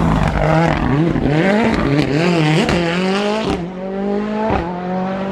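Rally car engine at full load, its pitch climbing and dropping again and again as the driver accelerates and shifts, with sharp cracks at the gear changes. About three and a half seconds in it lifts off and runs quieter and steadier.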